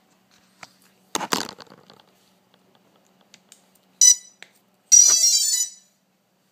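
Clatter of handling and a connector being pushed home, then the quadcopter's electronics beeping as they power up from the flight battery: one short, sharp beep about four seconds in, then a quick run of tones about a second later.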